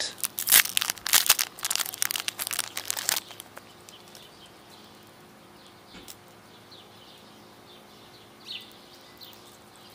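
Small clear plastic bag crinkling as a fishing lure is unwrapped: a rapid run of crackles that stops about three seconds in. After it, faint bird chirps.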